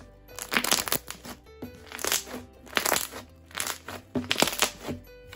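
Foam-bead slime crunching, crackling and popping as hands squeeze and knead it, in bursts about once a second, over soft background music.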